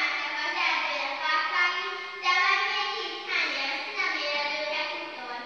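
A child singing a slow, unaccompanied melody, holding long notes that step up and down in pitch.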